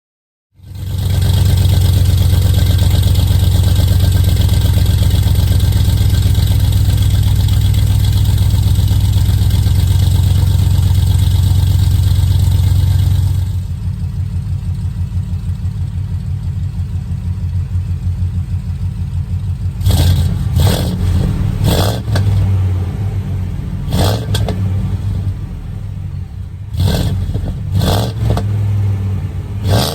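Supercharged 7.3 L gas V8 of a 2020 Ford F-250, exhaust through long-tube headers and MBRP pipes, running loud and steady for about the first half. It then drops to a lumpy, pulsing idle and is blipped in quick, sharp revs about seven times in the last ten seconds. The owner wonders whether there is an exhaust leak.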